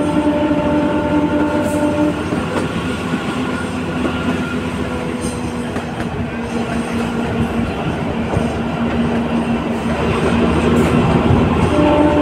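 Kalka–Shimla narrow-gauge toy train running, heard from an open coach window: a steady rumble of wheels on the track. A steady pitched hum rides over it, stronger for the first couple of seconds and again near the end.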